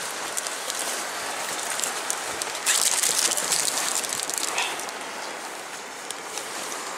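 Wind buffeting the nylon canopy of a beach fishing shelter: a steady noisy rush with fine crackling flutter from the fabric, louder from about three seconds in.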